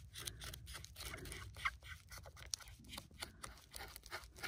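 Scissors cutting through Reflectix foil bubble insulation: a faint run of irregular crackles and snips as the material is trimmed.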